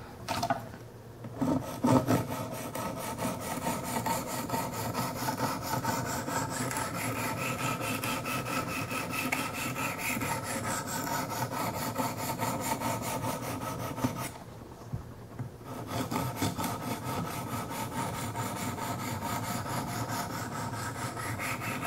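Wicked Edge 400-grit diamond stone stroked along the steel edge of a Kershaw Skyline knife: a continuous gritty scraping rub, with a pause of about a second and a half just after the middle. These are the first strokes at 400 grit on an edge left by the 200, so the rub still sounds rough. A couple of sharp knocks come in the first two seconds.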